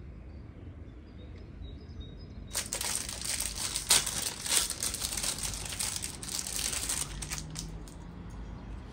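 Plastic packaging crinkling as it is handled, starting about two and a half seconds in and lasting several seconds in a run of quick rustling crackles before it dies away.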